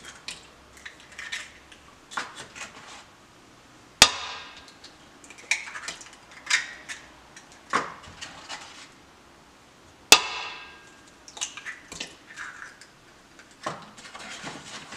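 Hen's eggs being cracked open one after another: two sharp knocks with a short ring, about six seconds apart, each followed by small clicks and taps as the shell is broken apart.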